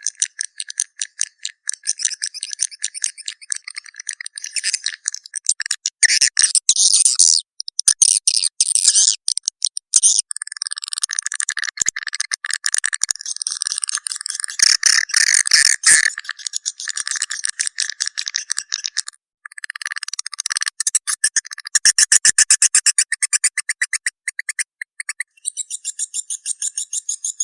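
Swiftlet call sound used to lure swiftlets into a bird house: dense, high-pitched chittering made of rapid clicks and chirps in long trains, with brief pauses.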